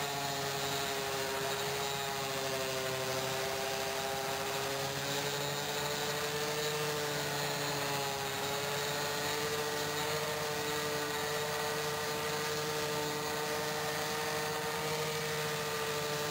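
Random orbital sander running steadily with a Blue-Job polishing cloth, polishing burned-on plastic bag off a chrome motorcycle exhaust pipe. Its motor gives a steady whine that wavers slightly in pitch.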